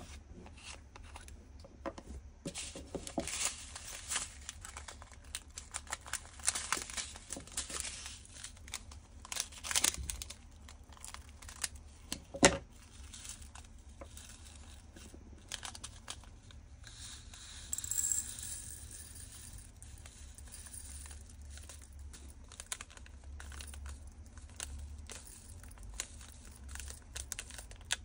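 Close-up crinkling of small plastic bags, with tiny resin diamond-painting drills rattling and plastic bead bottles and caps clicking as the drills are moved into the bottles. One sharp click about twelve seconds in is the loudest sound.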